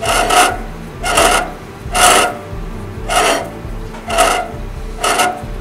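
Scraping rub repeated about once a second, six times, as the freshly machined front brake disc and hub of a Mercedes W126 are turned by hand in strokes during a runout check.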